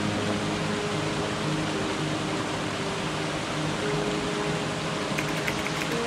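Steady rushing of water over rocks from a small stream cascade, with soft background music of sustained low notes.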